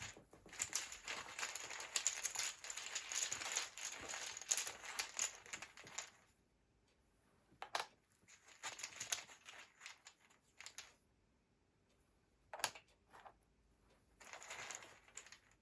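Tarot cards being shuffled and laid out, with rune pieces handled: continuous rustling for about six seconds, more rustling later, then a couple of sharp clicks and a last brief rustle.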